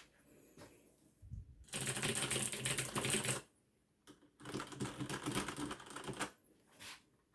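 Rapid typing on mechanical keyboards in two short stretches of dense key clatter with a pause between them. First comes a Das Keyboard with clicky Cherry MX Blue switches, then one with Cherry MX Red switches.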